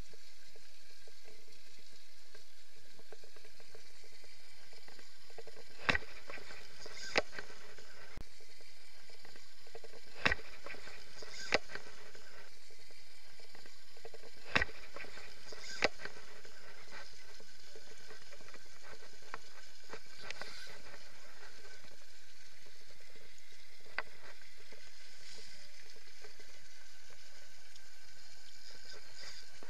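Water churning and fizzing as a hooked wels catfish thrashes at the surface just off the bank, a steady wash broken by a handful of sharp knocks, mostly in pairs, in the first half.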